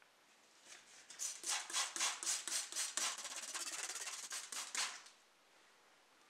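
Rapid rubbing strokes, about four a second, that merge into one continuous rub midway and stop suddenly about five seconds in.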